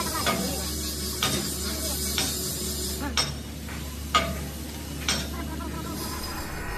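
Arc welding on the steel of an excavator bucket, a steady crackling sizzle over a low hum. Sharp metallic knocks come about once a second, some leaving a short ring.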